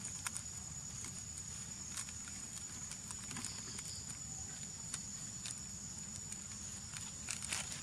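Scattered crackles of a plastic snack wrapper as a young long-tailed macaque chews and handles it, with a cluster of crackles near the end, over a steady high-pitched whine.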